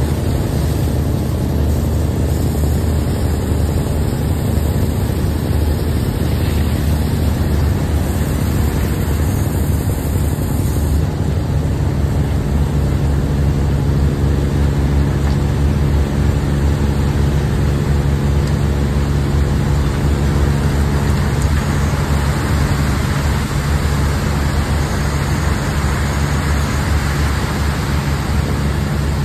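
Large engine of heavy machinery running steadily with a loud low drone and a steady hiss over it.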